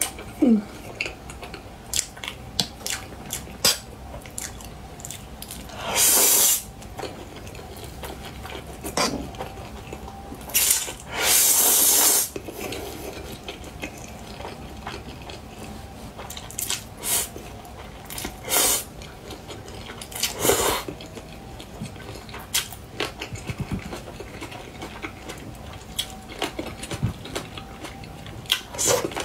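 Close-miked mukbang eating: wet chewing and smacking clicks throughout, with two long, loud slurps of noodles about six and eleven seconds in, and the odd click of chopsticks or a fork.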